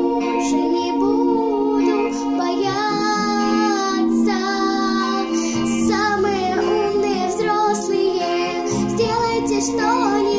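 A young girl singing a song over an instrumental backing track, with low bass notes coming in a little past halfway.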